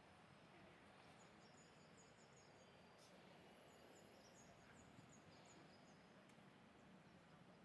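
Near silence: faint outdoor background hiss, with two runs of faint, high, quickly repeated chirps from small birds.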